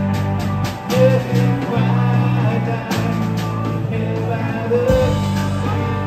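Live rock band playing: electric guitars, electric bass and a drum kit, with sustained bass notes under steady drum hits.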